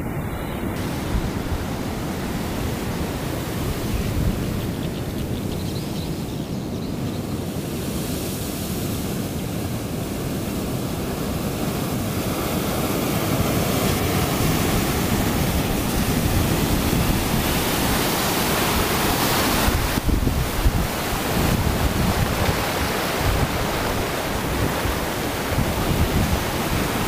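Bono tidal bore on the Kampar River surging upstream and spilling over the riverbank: a steady rush of turbulent water that grows louder about halfway through as the flood sweeps in close.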